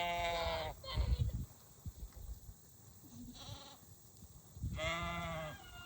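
Sheep bleating: two loud, wavering bleats, one at the start and one near the end, with a fainter bleat between them. There is also a brief low rumble about a second in.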